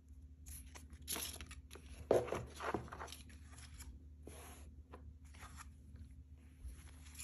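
Paper card and cardboard gift-box packaging being handled: irregular rustles and crinkles, loudest a little after two seconds in.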